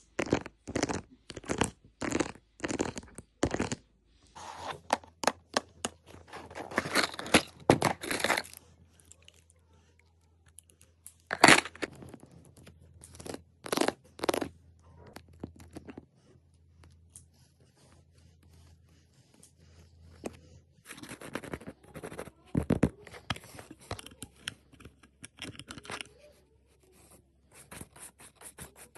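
Hands working the toys on a fidget board: a run of short scratchy rasps and clicks. They come in quick, even strokes for the first few seconds, then in longer rasps, and thin out around the middle.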